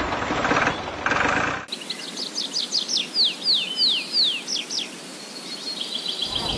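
Birdsong: a run of quick whistled notes, each sweeping downward in pitch, about four a second, then a faster, fainter trill near the end. Before it, a steady mechanical running noise cuts off abruptly about one and a half seconds in.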